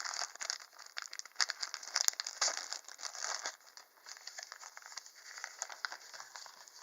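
Small paper sachets from a Sea-Monkey kit crinkling and rustling as they are handled, a dense run of irregular crackles and clicks.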